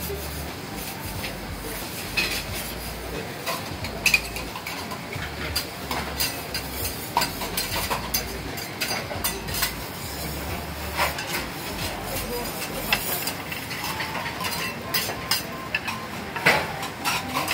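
Hiroshima-style okonomiyaki (cabbage heaps under pork belly) sizzling on a steel teppan griddle, with repeated clinks and scrapes of metal spatulas on the griddle, louder and thicker near the end.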